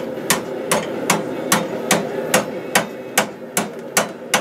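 Blacksmith's hand hammer striking hot flat steel stock on an anvil in a steady rhythm, about two and a half blows a second, each blow ringing briefly.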